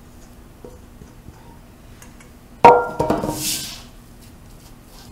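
A stainless steel mixing bowl put down hard, a sudden clank that rings briefly, followed by about a second of a silicone spatula scraping mashed potatoes around a ceramic pie dish.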